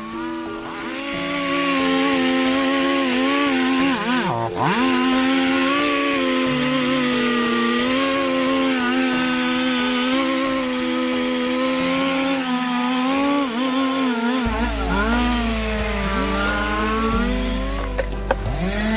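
Two-stroke chainsaw running at high revs while cutting through a thick jackfruit trunk, its pitch dropping sharply about four seconds in and again near the end as the chain bites and the engine bogs under load.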